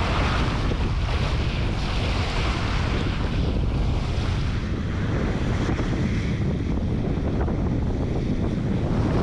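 Wind buffeting the microphone over the steady rush and splash of water along the hull of a sailing yacht under way.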